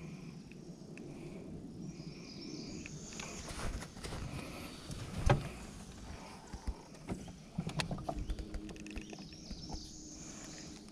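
Scattered knocks and clicks of fishing gear being handled in a boat, with one louder thump about five seconds in, over a faint outdoor background.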